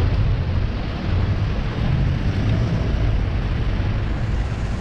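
Steady low rumble of wind and road noise on the microphone of a camera riding along on a bicycle.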